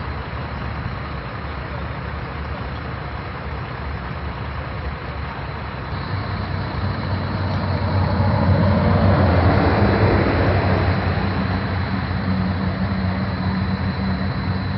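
Highway traffic: a heavy vehicle's engine and tyres pass close by, growing louder to a peak about nine seconds in and then easing off, over a steady background of road noise.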